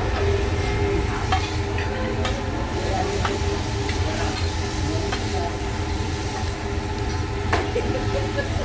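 Busy teppanyaki restaurant room: a steady low rumble and hiss, with a few sharp clinks of utensils every second or two.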